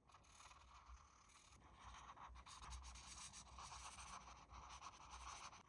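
Faint scratching and scraping with a few light clicks.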